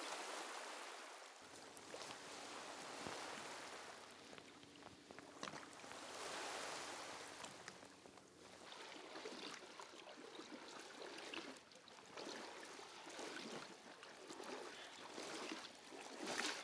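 Shallow seawater lapping and splashing softly, rising and falling every couple of seconds, with a louder splash near the end as a wader's legs push through the water.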